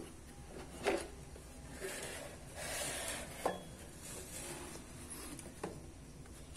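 Plastic latches of a hard Bosch tool case clicking open, the loudest snap about a second in, then a rubbing scrape as the lid is swung open and two more plastic clicks as the case and the bits inside are handled.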